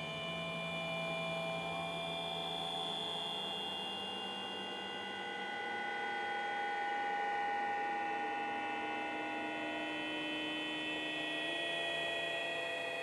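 Electronic music: a drone of many layered, steady tones at different pitches, single tones slowly fading in and out and one lower tone stepping up in pitch near the end, with a slight swell in loudness midway.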